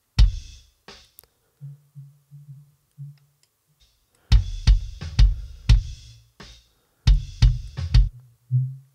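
Recorded rock kick drum playing back in short groups of punchy hits, with softer low pulses in between. It is heard through a narrow EQ notch cutting out a small resonance in the drum.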